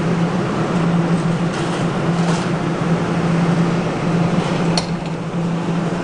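Steady low mechanical hum with a hiss over it, and one sharp click about five seconds in.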